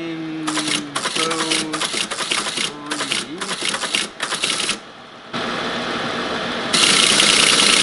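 1964 Teletype ASR 33 clattering in irregular bursts of mechanical strikes, then a steady mechanical running noise sets in about five seconds in and gets louder near the end.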